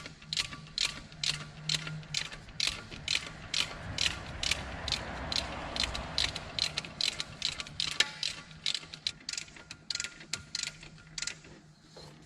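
Ratchet wrench clicking in a steady run, about two to three clicks a second, as it turns the alternator's 12 mm belt-tension adjusting bolt to tighten the drive belt. The clicking stops shortly before the end.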